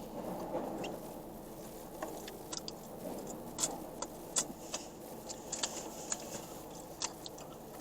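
Quiet eating sounds: scattered light clicks and rustles from utensils and a food container, with faint chewing, over a low steady hum.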